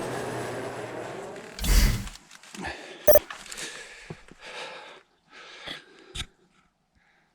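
A steady low hum that stops about a second and a half in, then a loud thump. After it come short breathy puffs of a hiker breathing hard, with a few sharp clicks and knocks.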